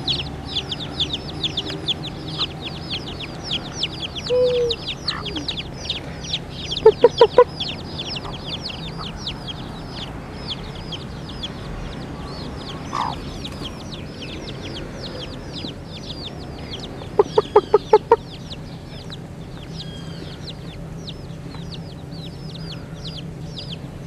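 Chicks peeping without pause, a stream of short high falling chirps, several a second. A mother hen clucks in two quick runs: about four clucks around a quarter of the way in, and about six more past the middle.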